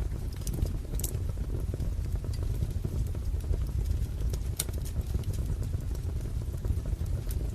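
Wood fire crackling: a steady low rumble of burning logs with sharp pops now and then. The loudest pops come about a second in, just past the middle, and near the end.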